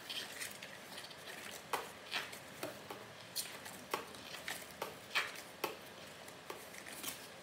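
Pages of a large glossy album photobook being flipped by hand: a string of short, irregular paper swishes and flaps.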